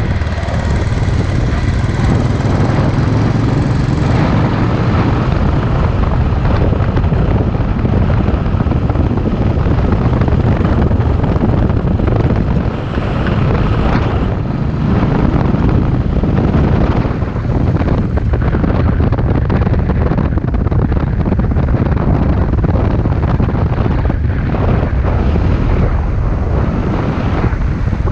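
Royal Enfield Classic 500's single-cylinder engine running steadily as the motorcycle travels at road speed, with wind rushing over the microphone.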